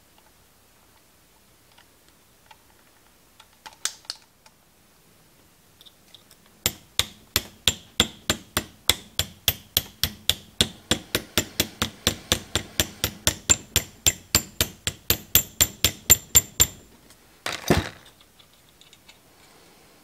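A small hammer tapping a pin punch to drive out a clinched rivet from an old Philco radio power switch clamped in a bench vise. The light, ringing metal taps come evenly, about four or five a second, for roughly ten seconds. A brief clatter follows.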